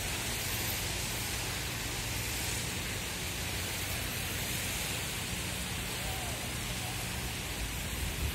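Steady beach ambience: an even hiss of small waves and breeze, with faint distant voices.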